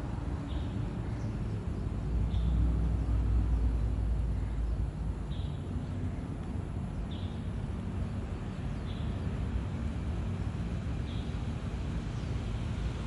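Outdoor ambience: a steady low rumble, heavier for a few seconds about two seconds in, with short high chirps repeating every one to three seconds.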